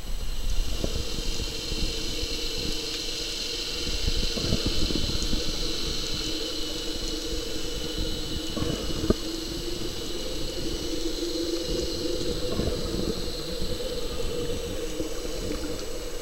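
Underwater sound picked up by a camera held below the sea surface: a muffled watery rush with faint crackles and clicks, over a steady low hum.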